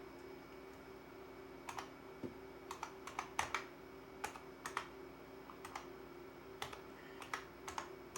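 IBM Model M buckling-spring keyboard keys being pressed one at a time in irregular clicks as keys are tested to see which ones register. A faint steady hum runs underneath.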